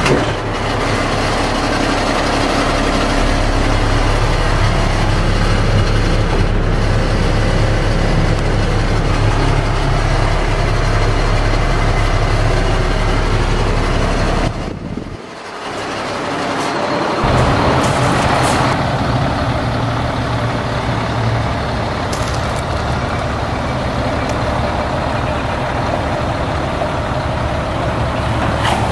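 Caterpillar C7 diesel engine of a heavy truck running steadily at idle. The sound drops away briefly about fifteen seconds in, then picks up again.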